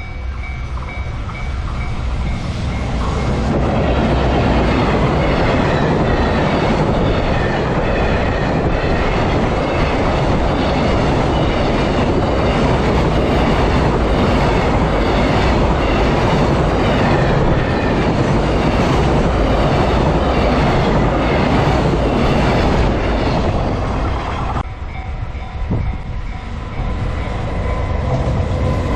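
A freight train hauled by a JR Freight EF210 electric locomotive passing over a level crossing, a long loud rumble of wagons and wheels with clickety-clack over the rail joints. It builds up over the first few seconds and eases off about four seconds before the end. A repeating electronic ding of the crossing's warning bell sounds through it.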